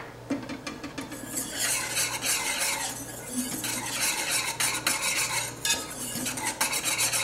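Thick brown sugar sauce boiling in a small saucepan, a rapid, steady bubbling and popping. A wire whisk stirs through it near the start.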